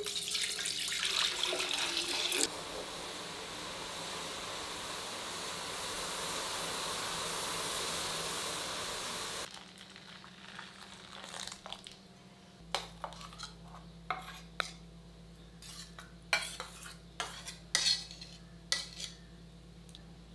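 Milk splashing as it is poured into a steel pan, then several seconds of steady hiss that cuts off abruptly about nine seconds in. After that, quieter kitchen handling with a string of sharp clinks and taps of utensils against steel and glass dishes.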